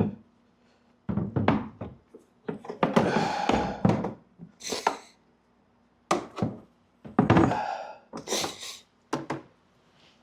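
Hard plastic parts knocking and scraping: a run of separate thunks and rattles as a loosened Sea-Doo speaker pod and its trim panels are handled.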